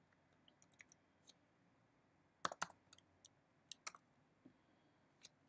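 Computer keyboard keys typed in short runs of two or three clicks with quiet gaps between; the loudest run comes about two and a half seconds in.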